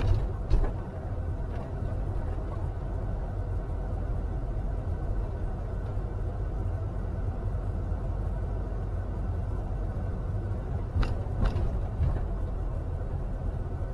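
Steady low engine and road rumble inside a camping-car's cab as it drives slowly, with a couple of sharp knocks near the start and two more about eleven seconds in.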